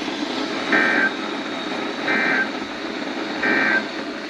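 Three short bursts of Emergency Alert System SAME digital data tones over a hissy radio signal, each about a third of a second long with a one-second gap between them. Bursts this short are the end-of-message (NNNN) signal that closes an alert.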